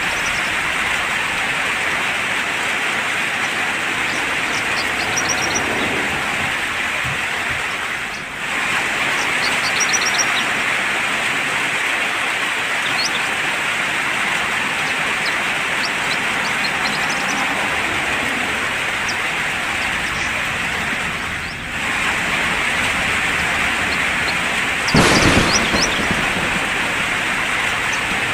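Steady rain falling, with scattered short bird chirps. Near the end a sudden clap of thunder, the loudest sound.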